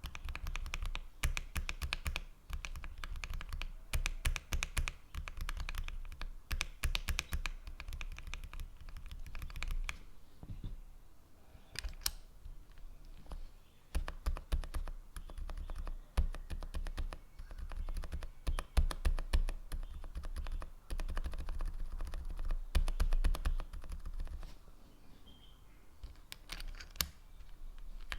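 Typing on a mechanical keyboard fitted with Kailh Box linear switches: fast runs of keystrokes with short pauses, each press and release a clack.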